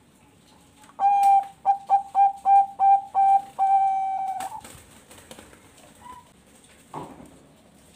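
Zebra dove (Bangkok-bred perkutut) singing one phrase of its song: a run of short, clipped coos at one steady pitch that ends in a longer held note, lasting about three and a half seconds.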